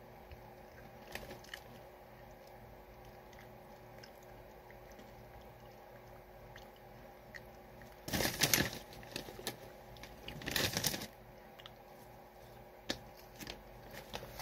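A snack bag of popcorn rustling loudly twice, about eight and ten seconds in, as a hand reaches in for more, with faint crunchy chewing and small clicks between.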